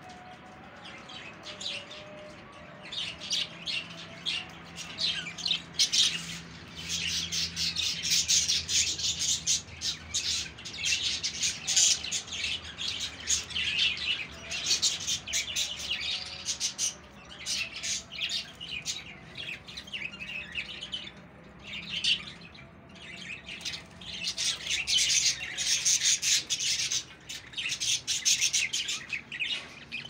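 A flock of caged budgerigars chattering and chirping continuously, many birds at once, in louder and quieter waves.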